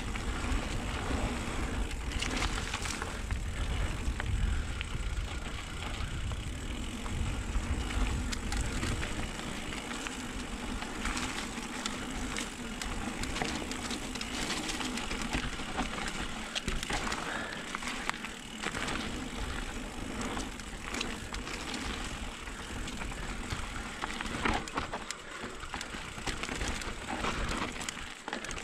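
Electric mountain bike riding fast down dusty dirt singletrack: tyres crunching over dirt and leaf litter, with repeated knocks and rattles of the bike over bumps. Wind rumbles on the microphone, heaviest in the first ten seconds or so.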